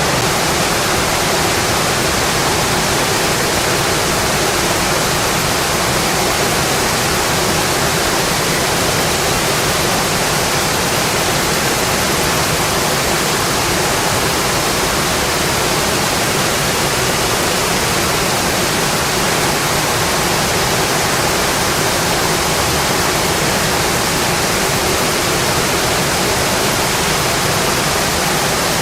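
Rain falling steadily: a dense, even hiss with no separate drops, gusts or thunder standing out.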